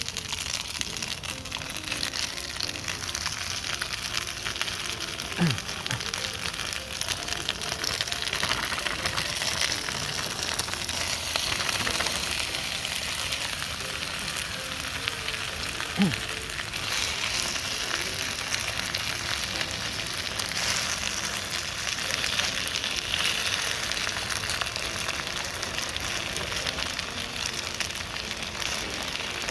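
Gyoza frying in a pan: a steady sizzle throughout, with two short knocks, one about five seconds in and one about sixteen seconds in.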